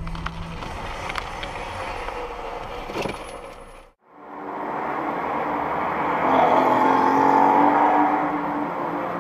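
Road traffic and engine noise picked up by a dashcam, with a few sharp knocks in the first part. About four seconds in it cuts to a moment of silence, then returns as denser traffic noise with a steady engine hum, louder for a couple of seconds in the middle.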